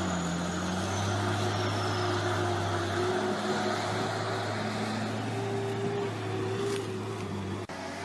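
A heavy machine's engine running steadily, with a brief break in the sound near the end.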